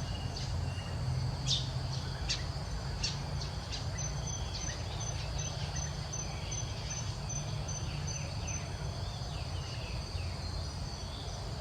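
Insects calling: a steady high buzz, with a short high chirp repeating about twice a second. Scattered short, sharp calls come in the first few seconds, over a steady low rumble.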